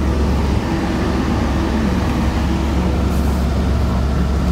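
Steady low rumble inside the cabin of a 2006 Kia SUV with its engine running.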